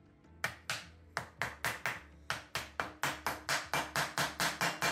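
Rapid, even tapping on the aluminium timing cover of a 1967 Triumph T100C engine, about five strikes a second, starting about half a second in. The cover is being knocked loose from the case sealant that holds it in place of a gasket.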